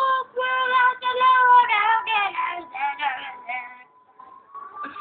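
A girl singing in a high voice, a run of held, wavering notes that trails off about four seconds in.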